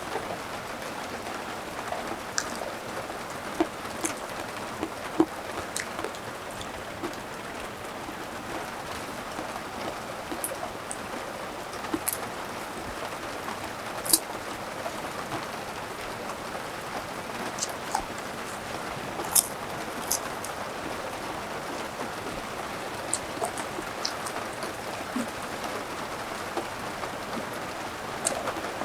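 Steady rain falling, an even hiss with scattered sharp ticks and taps.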